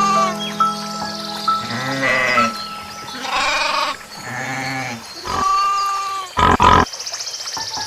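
Bleating livestock, several separate arching calls one after another, over background music with held notes.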